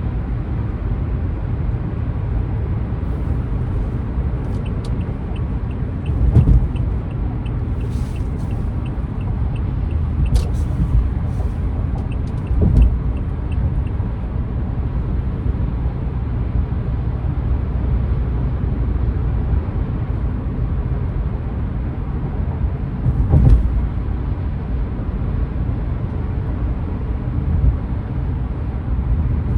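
A car driving in traffic: steady low engine and road rumble, broken by a few brief heavy thumps, with a run of quick regular ticks at about two a second through the first half.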